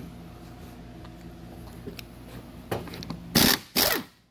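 Cordless impact wrench fired in two short bursts near the end, backing a transmission cooler line fitting out of an old radiator's plastic tank.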